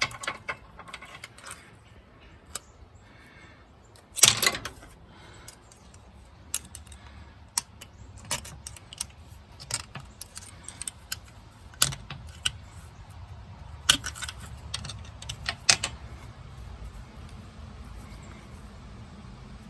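Metal-on-metal clinks and clacks as valve lifters are worked out of their bores in a 351 Windsor V8 block and handled, in irregular bursts, the loudest clack about four seconds in.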